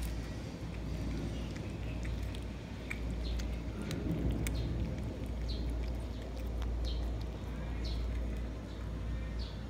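Cats chewing fish, with scattered sharp clicks and crunches over a steady low rumble. In the second half, short high chirps recur about once a second.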